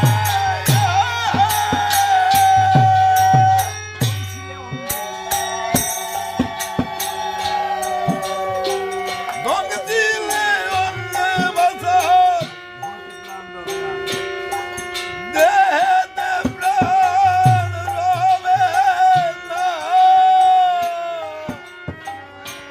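Instrumental interlude of Bengali devotional folk music: a melody line with bending, wavering pitch over shaken and clicking hand percussion, with low drum strokes in the first few seconds and again past the middle.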